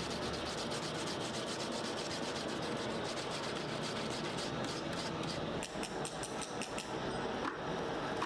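Rapid, rhythmic scraping or rubbing strokes, several a second, turning uneven about five seconds in.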